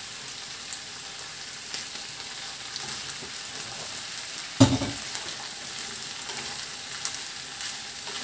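Raw potato sticks and pork frying in a pan over high heat, with a steady sizzle and small clicks as they are stirred with a wooden spatula. One loud knock about halfway through.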